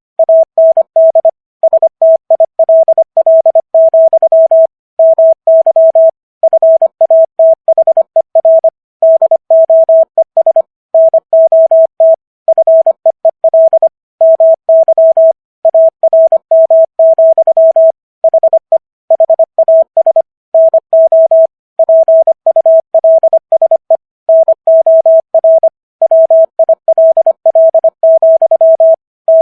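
Morse code sent at 25 words per minute as a single steady beep tone keyed on and off in quick short and long elements (dits and dahs), with brief gaps between letters and words.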